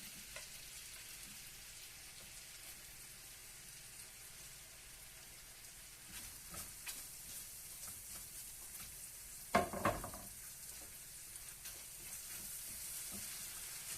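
Garlic, onion, bell pepper and carrots frying in butter in a pan: a faint, steady sizzle, with a few light knocks of the stirring utensil against the pan and one louder knock about ten seconds in.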